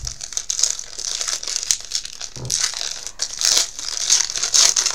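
Wrapper of a 2011 Panini Elite football card pack crinkling and tearing as it is torn open by hand, a dense run of crackles that gets busier in the second half.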